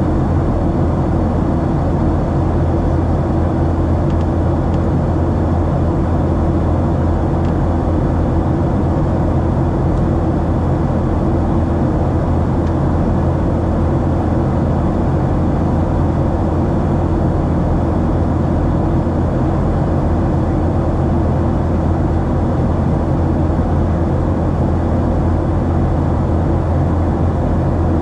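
Steady in-flight cabin drone of a Boeing 737-700, its CFM56-7B engines and the airflow heard from inside the passenger cabin. It is an even, unbroken noise with a strong low hum.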